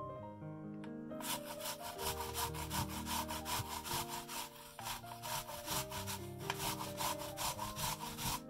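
A whole apple grated on a flat metal hand grater, its flesh rasping across the cutting holes in quick back-and-forth strokes, about four a second. The grating starts about a second in and stops just before the end.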